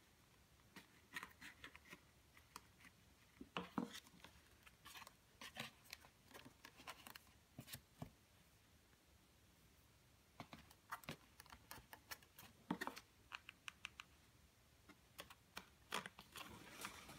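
Stiff yellow cardstock being folded and pressed by hand, faint: short clusters of paper crackles and soft taps come and go, with quiet gaps between.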